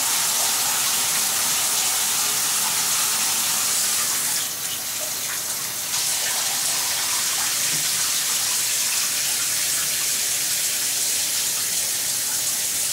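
Water spraying steadily from a handheld detachable shower head in a bathtub during hair washing. The spray dips and changes briefly in the middle, then runs on as before.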